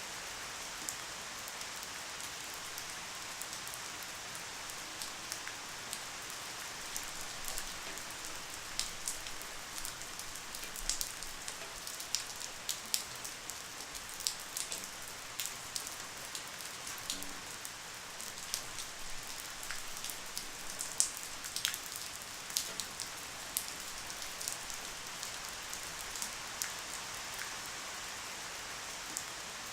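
Light rain falling steadily: a soft even hiss with many separate drops pattering and ticking on a surface, the drops thicker through the middle.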